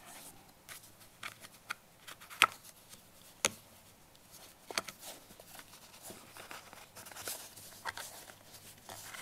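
Packaging being handled: a few sharp clicks and taps of cardboard and plastic, the loudest about two and a half seconds in, with light rustling near the end.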